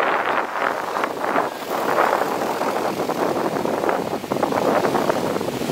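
Surf on a sandy beach: waves breaking and foam washing up over the sand in a steady, uneven hiss.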